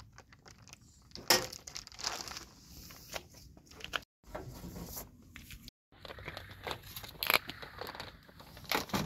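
A plastic tarp crinkling and rustling as it is pulled taut and tucked in, with scattered sharp clicks and knocks from handling. The sound drops out completely twice, briefly, around the middle.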